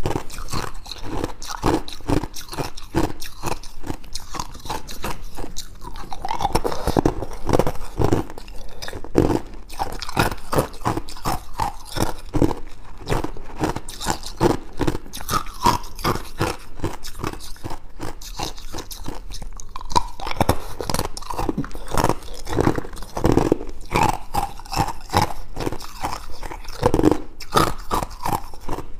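Clear ice cubes being bitten and chewed, a continuous dense crunching and crackling of ice breaking between the teeth.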